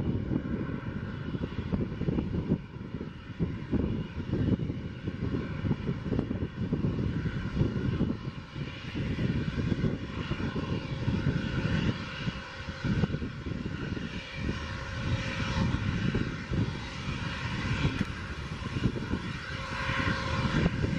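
Twin rear-mounted turbofans of a Bombardier Global-series business jet running at low taxi power, a steady high whine that grows louder in the second half as the jet rolls closer, over a gusty low rumble.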